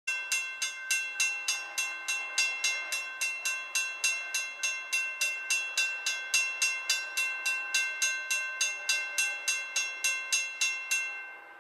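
Railroad grade-crossing warning bell ringing at a steady pace of about three and a half strikes a second, each strike ringing on the same few pitches, as a train approaches. It stops abruptly just before the end.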